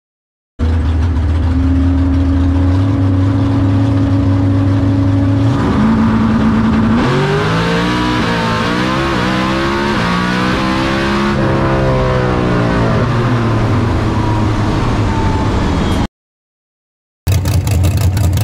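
Small-block V8 of a drag-radial car heard from inside the cockpit: after a brief silence it runs steadily, steps up in revs, and from about seven seconds in its pitch climbs and drops back several times as it shifts through the gears on a full pass, then falls away slowly as the car slows. After a short gap near the end comes the same engine heard from trackside at the start line.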